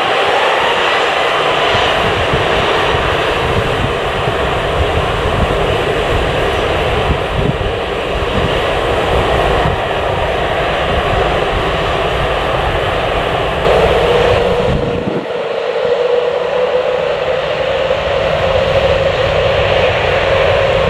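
Jet airliner's engines running loud and steady as the aircraft passes close by. About two-thirds of the way through, a whining engine tone comes up and slowly rises in pitch.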